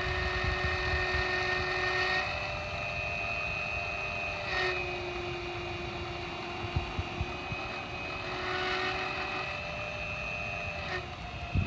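A remote-controlled motor running with a steady whine at several fixed pitches. The tone shifts a few times, about two seconds in and again near five seconds, and changes once more near the end.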